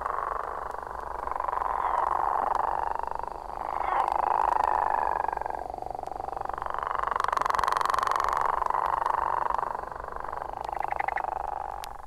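Chorus of Florida gopher frogs: long calls that swell and fade over two or three seconds each, overlapping one another, played back from a vinyl record.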